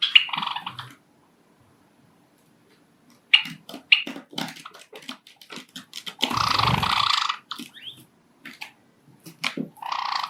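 Pet Java sparrows pecking and scuffling: many sharp clicks and short harsh calls, with a loud rustling burst lasting about a second, some six seconds in.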